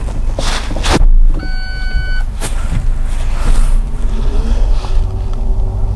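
A car being driven, heard from inside the cabin, with a steady low engine and road rumble. There are a few knocks near the start and a single steady beep lasting under a second about a second and a half in.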